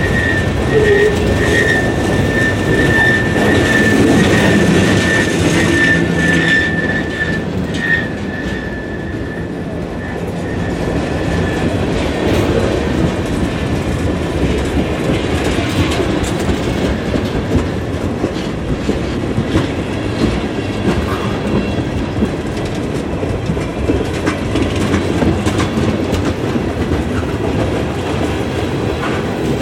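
Freight cars rolling past close by, the wheels rumbling and clicking over the rail joints. A thin, steady high squeal rings over the rumble for the first dozen seconds or so, then fades out.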